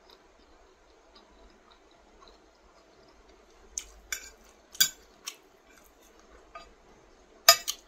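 Metal fork clinking against a plate as food is gathered up: a handful of sharp clicks starting about four seconds in, the loudest near the end.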